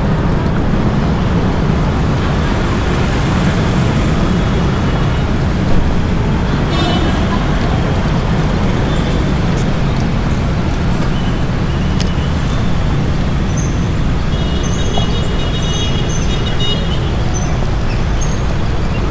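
Steady outdoor city street ambience recorded from a moving bicycle: a constant low rumble of road traffic noise, with a few short high-pitched tones in the second half.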